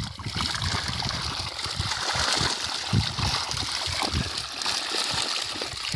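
Shallow water sloshing and splashing as a fine net is dragged through it to catch small fish, a steady wash with irregular low knocks.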